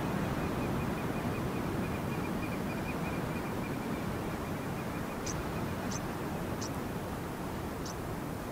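Steady outdoor rushing noise of surf and wind in a coastal wetland, with a faint rapid trill that stops about halfway. Four short, high bird chirps follow, spaced under a second apart.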